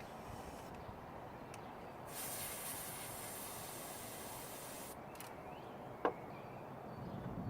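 Can of compressed air (air duster) spraying into a U-lock's keyhole to freeze the lock, one steady hiss of about three seconds starting some two seconds in. A short click follows about six seconds in.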